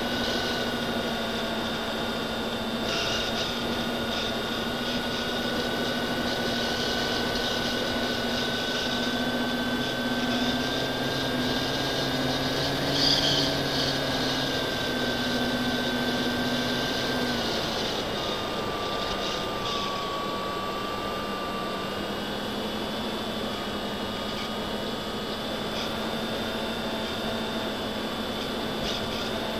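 Electric motors and propellers of an FPV aircraft whining steadily, picked up by its onboard camera, the pitch shifting with the throttle and dropping about seventeen seconds in. A brief louder noise about thirteen seconds in.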